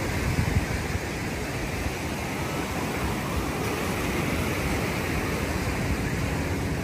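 Ocean surf: small waves breaking and washing up the beach in a steady, unbroken rush.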